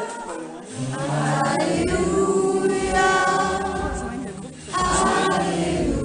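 A mixed group of men and women singing together in long held phrases, with two short breaks between phrases.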